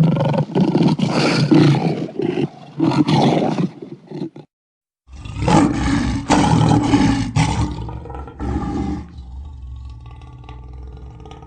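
Big-cat roar sound effect: loud, rough roaring for about four seconds, cut off into a brief dead silence, then a second stretch of roaring that sinks into a quieter low rumble near the end.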